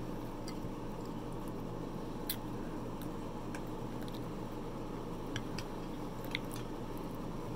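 Close-miked eating: chewing and wet mouth sounds, with a few short, sharp clicks of a metal fork against the plate as the meat is cut, over a steady background hum.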